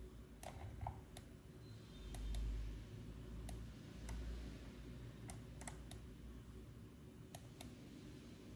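A dozen or so scattered, irregular clicks of a computer mouse and keyboard, over a faint low rumble that swells briefly about two seconds in.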